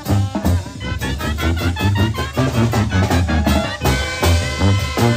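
Live tamborazo banda playing an instrumental passage of a cumbia: clarinets and trumpets carry quick melodic runs over trombone and a drum kit keeping a steady dance beat.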